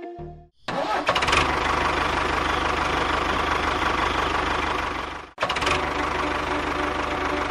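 A small engine starting about half a second in and running with a fast, even knocking beat, broken off abruptly about five seconds in and then going on running.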